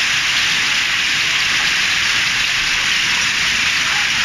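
Hail and heavy rain pelting a street and pavement, a steady dense hiss that does not let up.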